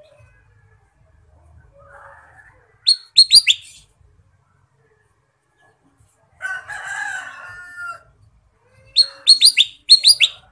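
Kutilang emas bulbul calling in quick bursts of sharp, falling whistled notes: three or four notes about three seconds in, and a run of five near the end. Between them, a harsher, longer call of about a second and a half.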